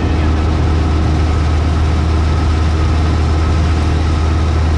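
Single-engine propeller light aircraft's engine and propeller droning steadily in flight, heard from inside the cockpit: a loud, deep, unchanging hum.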